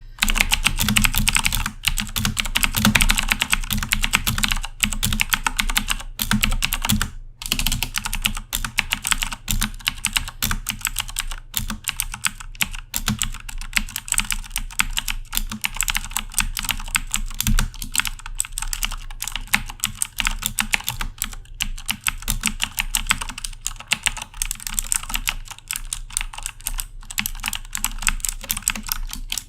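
Continuous fast typing on a Corsair K70 mechanical keyboard with Cherry MX Blue switches: a dense stream of sharp clicky keystrokes, with a brief pause about seven seconds in.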